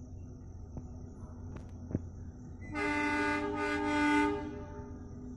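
Horn of a ZDM narrow-gauge diesel locomotive on the Kangra Valley Railway, sounding one blast of just under two seconds about halfway in.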